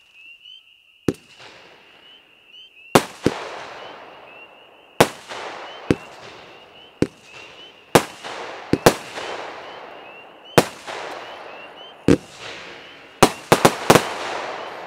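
Firework cake (FAE Scorpion Sting, 25 shots with snakes and strobes) firing shot after shot: about fifteen sharp bangs at uneven intervals, several in quick succession near the end, each followed by a fizzing, crackling tail that fades.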